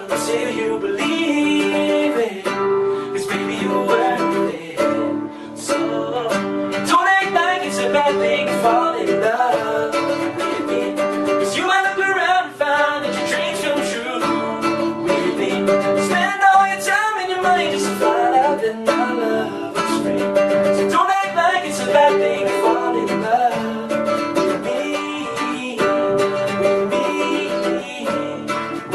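Background music: a song with strummed acoustic guitar or ukulele and a singing voice.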